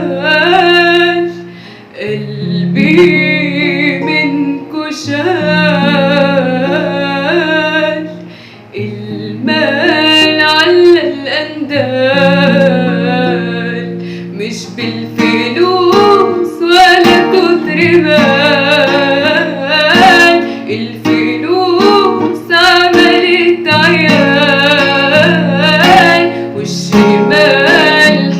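A voice singing a melody with wavering, ornamented lines, accompanied by a strummed plucked string instrument over held low bass notes. The strumming grows busier about halfway through.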